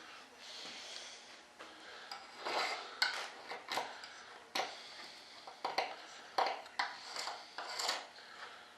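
Scattered sharp clicks, taps and short scrapes of hand work on a molded fiberglass-and-resin part, hard tool and part knocking and rubbing.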